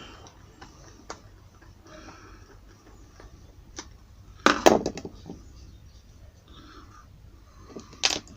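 Sharp knocks and clicks of hand work on a shoe. There are a few light taps, then a loud quick cluster of knocks about halfway, and another loud knock near the end.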